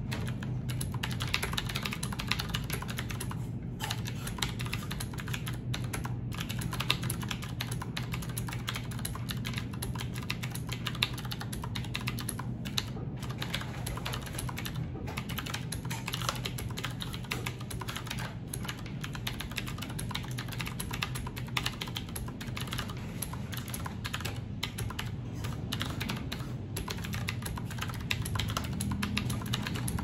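Fast, continuous typing on a Qwerkywriter typewriter-style mechanical keyboard with round keycaps: a dense stream of key clacks, broken by a few brief pauses.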